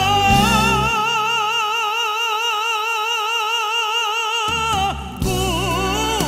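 Background song: a singer holds one long note with steady vibrato for over four seconds while the bass drops away, then the melody goes on after a short dip.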